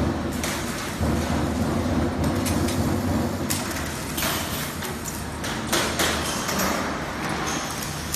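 Factory noise at a robotic welding cell: a steady machine hum, with short bursts of metal clatter as steel parts are handled in fixtures on the rotary positioner table, the loudest a few seconds in.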